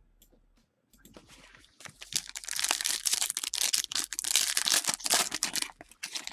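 Trading card pack wrapper being torn open and crinkled by hand: a loud, dense crackling that starts about two seconds in and runs on for about four seconds.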